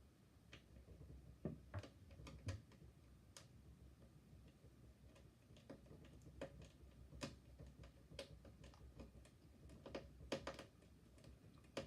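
Faint, irregular small clicks and ticks of a short screwdriver turning tiny screws back into a laptop screen assembly, a few clicks a second with pauses between.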